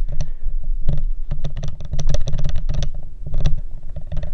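Hands handling small parts and hardware: rapid, irregular clicks and taps over a low rumble.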